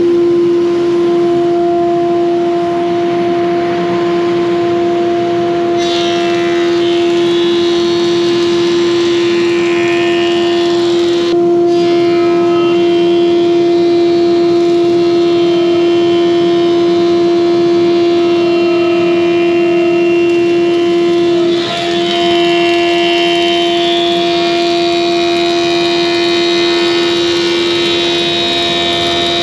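Planer-thicknesser running with a loud, steady hum, planing oak frame stock to thickness. A hissing cutting noise comes in about six seconds in as the board goes through, with a short sharp knock near the middle and more cutting hiss in the last third.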